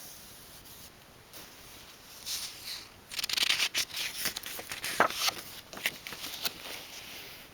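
Paper rustling and a few sharp clicks as a page of a book is handled and turned.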